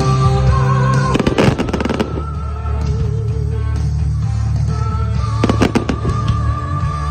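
Fireworks shells bursting in two quick clusters of cracks, about a second in and again about five and a half seconds in, over loud music played for the display.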